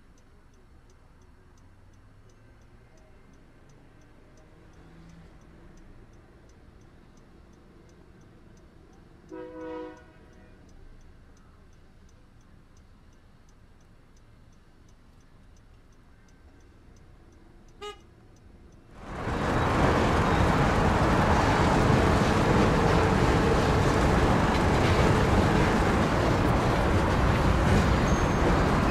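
A distant horn toots briefly once over a quiet background. About two-thirds of the way in, a loud, even rushing noise starts abruptly and carries on.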